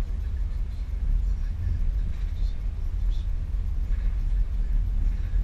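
Steady low rumble of a car driving, heard from inside the cabin: engine and road noise with no breaks.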